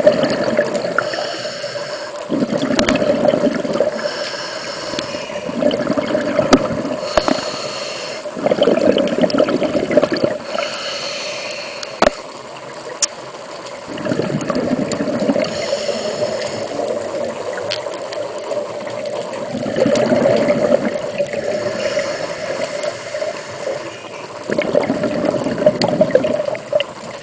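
Scuba diver breathing through a regulator underwater: a hiss on each inhale, then a rush of bubbles on each exhale, in a slow cycle of several breaths over a steady hum.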